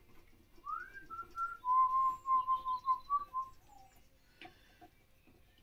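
A person whistling a short tune: a rising slide, a held note, a run of short repeated notes, then a lower falling note to finish. A few faint clicks follow near the end.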